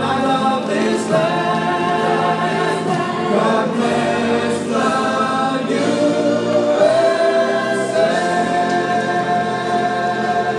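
Choral music: a choir singing long held notes that change slowly.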